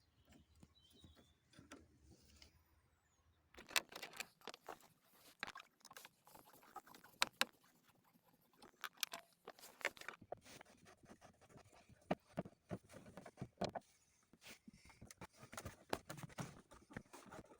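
Irregular clicks, taps and light knocks of hand tools and parts being handled during car disassembly, starting about four seconds in after a few quiet seconds.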